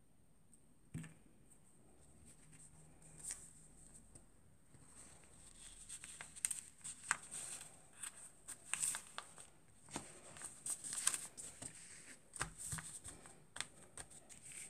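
Faint rustling of a paper pattern and fabric with scattered small clicks as straight pins are picked up and pushed through the paper into the cloth; the handling gets busier about halfway through.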